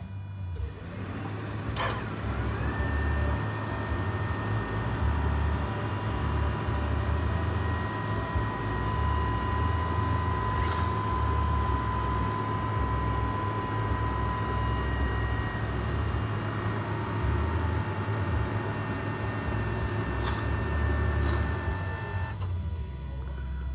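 2005 Toyota Prius's 1.5-litre four-cylinder petrol engine running with a low rumble and a steady high whine. It starts about a second in and cuts off abruptly near the end, the hybrid's engine starting and stopping on its own, here with a freshly fitted aftermarket catalytic converter.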